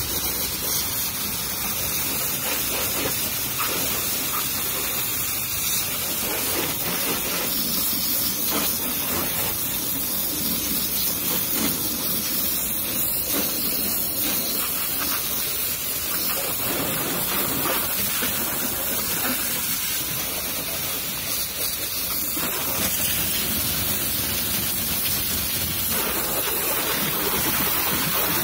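High-pressure washer jet spraying water onto a car's body panels: a steady hiss of spray with water spattering off the paintwork.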